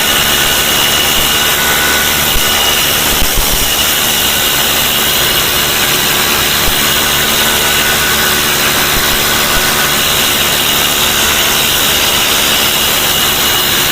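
Power tool running continuously while stripping rust scale: a loud, even hiss with a steady high-pitched whine.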